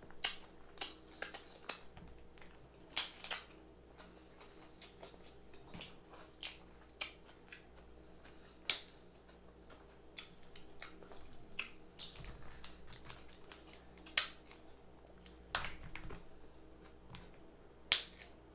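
Eating crab legs: irregular sharp cracks and clicks from the shells, with wet mouth smacking and chewing. Three snaps stand out louder than the rest.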